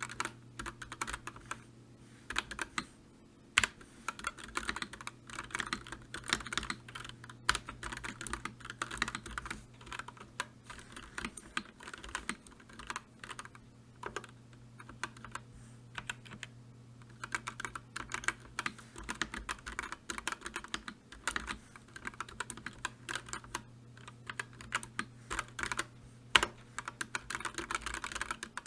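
Typing on a computer keyboard: runs of quick key clicks with short pauses between them, over a low steady hum.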